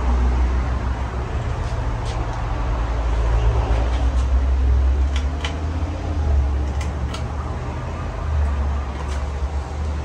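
50-inch Casablanca Delta II ceiling fan running at speed on its Samsung K55 motor, fitted with new bearings. Its moving air gives a steady, fluctuating low rumble, with a few faint clicks.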